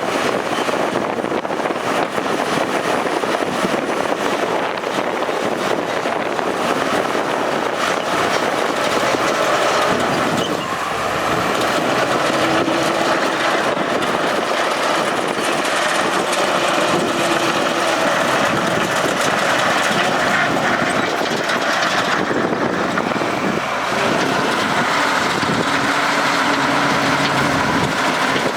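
Heavy earthmoving machinery's diesel engine running hard and steadily, its pitch drifting up and down, with a brief dip about ten seconds in.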